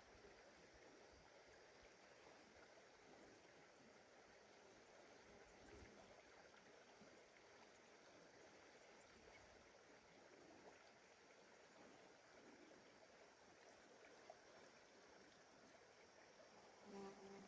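Near silence: faint outdoor background hiss, with a brief faint pitched sound near the end.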